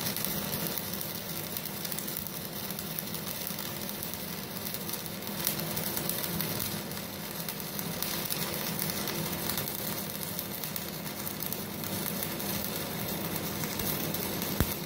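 Stick (MMA) welding arc burning steadily, a 3.2 mm LB electrode at 96 amps crackling and sizzling, with a couple of brief pops; the inverter welder's voltage reducing device (VRD) is switched off.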